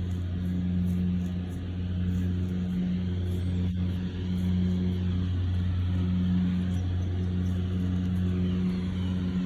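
A motor vehicle running steadily with a low, even hum. There is a brief faint click about four seconds in.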